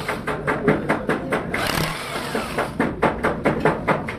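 Rapid, irregular metallic clicks and knocks of a spanner working the bolts on a ZF truck gearbox's cast casing, about four or five a second.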